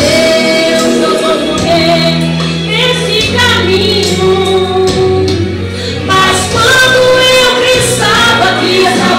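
A woman singing a Portuguese gospel hymn into a microphone over a playback backing track with steady held bass notes.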